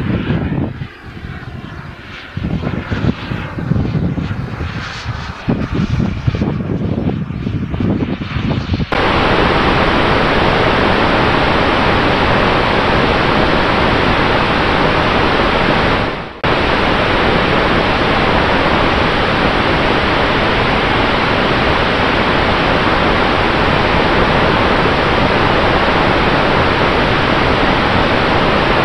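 A small unmanned aircraft flying overhead, its engine sound rising and falling as it passes. About nine seconds in the sound switches abruptly to a steady rush of airflow over a camera mounted on an aircraft in flight, with a faint steady hum beneath it and a momentary dropout midway.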